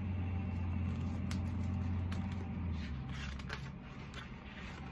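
Pages of a softcover picture book rustling as it is handled and turned, with a few light clicks, over a steady low hum that drops a little about three seconds in.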